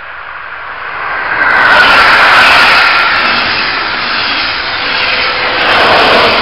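Regional passenger train of double-deck coaches passing close at speed: the rush of wheels on rails and air swells to a peak about two seconds in, with a whine that drops in pitch as it goes by, then swells again near the end.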